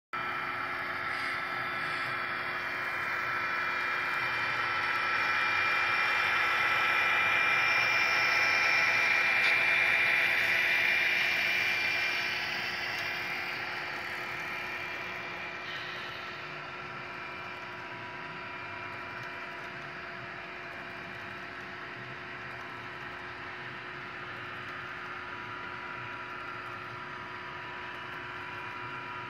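Model freight train running along the layout track: a steady mechanical hum with a few constant tones, growing louder as the locomotives come past, then dropping back to a lower steady rolling hum as the string of freight cars follows.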